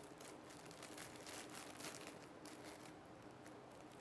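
Faint plastic crinkling and rustling as a squishy toy is handled, with a scatter of small clicks throughout.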